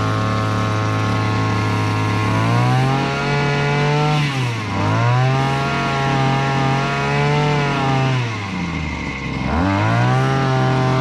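Small engine of a Koshin EP-10P engine-powered sprayer running. Its speed rises about two and a half seconds in, then sags and picks back up twice, the second dip near the end deep. The engine speed will not stay steady.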